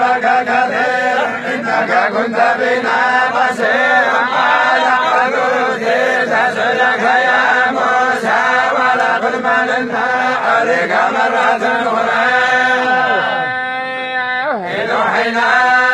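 Many men's voices chanting the Quran together in unison. The line moves in melodic phrases and settles into long held notes near the end.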